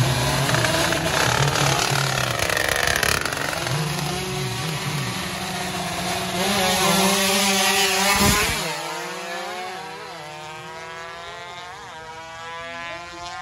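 A 116cc drag-racing underbone motorcycle revving hard, then accelerating away down the strip. Its engine pitch climbs and dips briefly at each gear change, and the sound fades as the bike pulls away.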